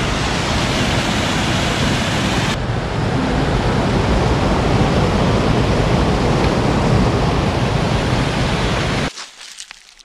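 Waterfall: a loud, steady rush of falling water that cuts off suddenly about nine seconds in.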